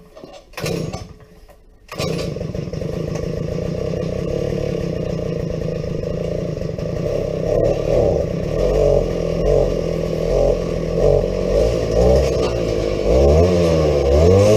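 Earthquake MC43 mini tiller's two-stroke engine being pull-started by its recoil rope; it catches about two seconds in, on its new carburetor. It runs steadily, then its speed starts to waver, and near the end the revs rise and fall.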